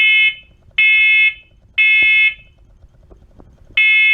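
Combination smoke and carbon monoxide alarm in test mode, beeping in the temporal-three evacuation pattern. It gives three high-pitched beeps of about half a second each, a second apart, then a pause, and the next set of three begins near the end.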